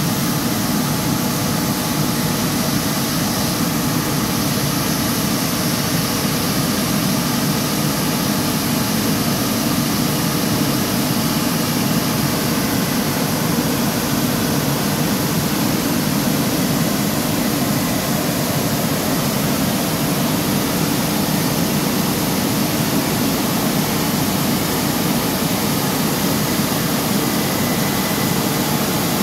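Automatic rollover car wash machine running with an empty bay: a loud, steady rushing noise over a low hum, unchanging throughout.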